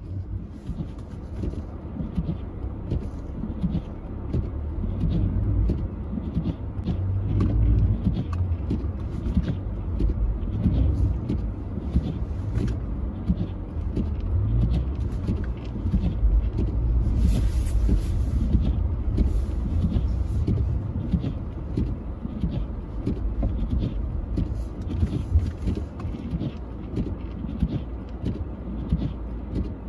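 A car driving on snow: a steady low rumble of engine and tyres, with many scattered crackles and a brief hiss a little past the middle.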